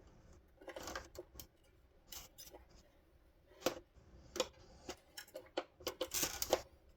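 Irregular plastic clicks and taps from prying at a headlight's clip and handling its plastic parts during disassembly, with a cluster of quicker clicks in the second half.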